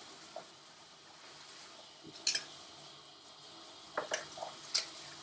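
A short hissing spray from a trigger spray bottle about two seconds in, as disinfectant is sprayed onto a grooming brush, followed by a few light plastic clicks and knocks against the grooming tub.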